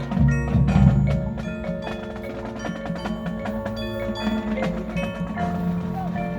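High school marching band playing, with the front ensemble's mallet percussion (marimba and bells) striking quick ringing notes over sustained low band chords. Louder for about the first second, then softer.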